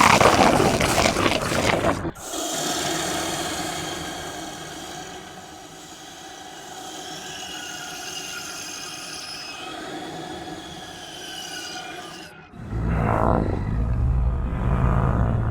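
Monster and alien creature sound effects: a harsh rasping growl for about two seconds, then a long drawn-out cry with many overtones that slowly waver in pitch and fade over about ten seconds, then a deep rumbling growl starting near the end.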